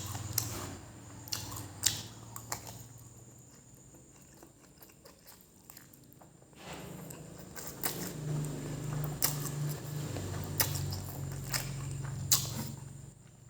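Close-miked chewing of fried noodles, with wet mouth clicks and smacks scattered through. It eases off in the middle and picks up again after about seven seconds.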